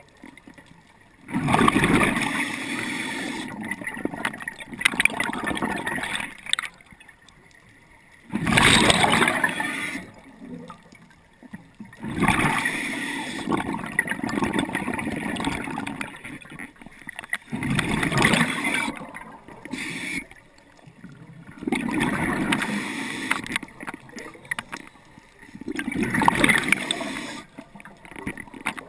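Diver breathing underwater through a scuba regulator: repeated breaths, each a sharp hiss followed by a longer gurgle of exhaled bubbles, with short quiet gaps between them.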